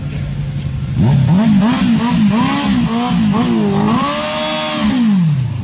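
Motorcycle engine revved in a run of quick throttle blips, its pitch swooping up and down about eight times. It is then held high for about a second and drops back to idle near the end.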